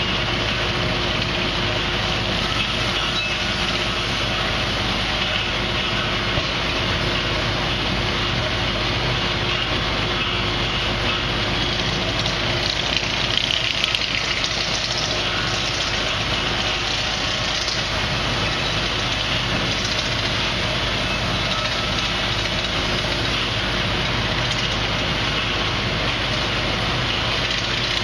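Wood-Mizer LT50 band sawmill running, a loud steady machinery drone with no breaks or changes.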